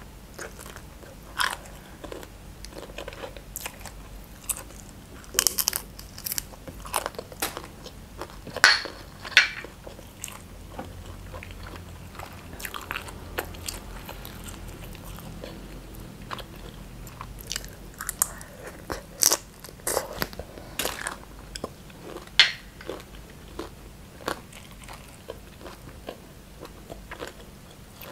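A person biting and chewing cooked shrimp, with irregular sharp crunches and clicks of the mouth.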